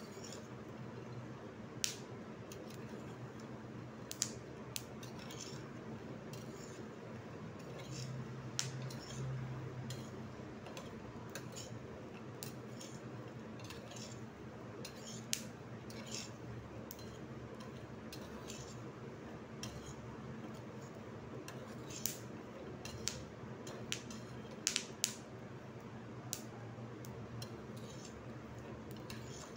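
Peanuts being dry-roasted and stirred with a spoon in a pan: irregular clicks and scrapes of the spoon and the nuts against the pan, a few of them louder, over a steady low hum.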